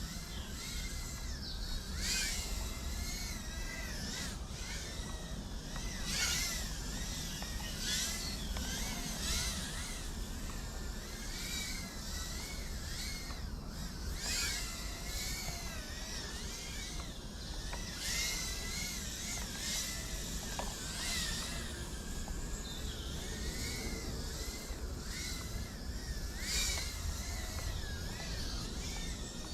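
Tiny whoop FPV drone's four 25000kv brushless motors whining, the pitch rising and falling constantly as the throttle changes.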